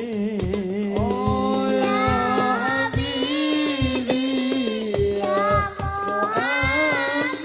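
Sholawat devotional singing: a high solo voice holding long, wavering notes over the steady beat of hadroh frame drums.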